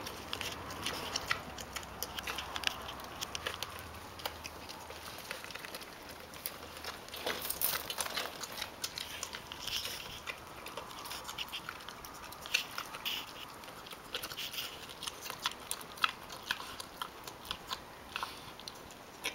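Pot-bellied pig eating from a plastic bowl: irregular chewing and crunching throughout.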